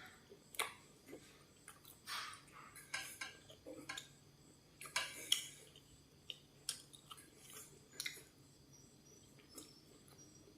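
Faint eating sounds: scattered crunchy bites and chewing of air-fried food, with light clicks of a utensil against a dish.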